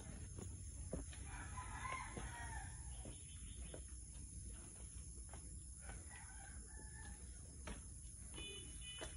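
A rooster crowing, one long crow starting about a second in, with a fainter call around six seconds in.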